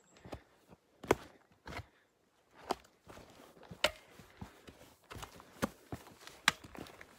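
Hiker's footsteps coming down a steep, rocky dirt trail: irregular sharp footfalls, roughly one a second, the loudest about a second in and again near the end.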